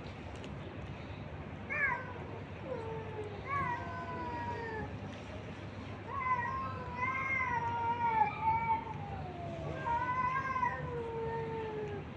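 Stray cats meowing repeatedly: several drawn-out, falling meows, the longest lasting about three seconds, over a steady low background hum.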